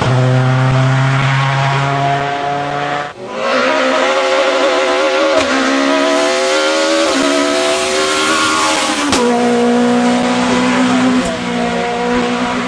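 Rally car engines at full throttle, each run climbing in pitch and dropping back at quick upshifts every second or two. The sound breaks off sharply about three seconds in and picks up again on another car accelerating through its gears.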